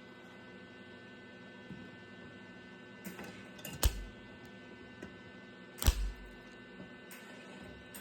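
Steady electrical hum broken by a few short, sharp pops from a MIG welder's arc striking and dying at once, the two loudest about four and six seconds in: the arc won't hold, which the welder puts down to a poor ground connection.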